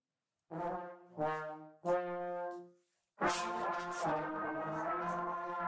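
Valved brass instruments in a call and response: a single brass instrument plays three short notes, then the group of brass players plays back a longer run of notes together.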